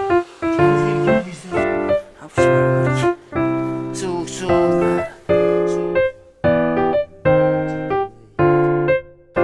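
Background piano music: slow chords, one struck roughly every second and fading before the next.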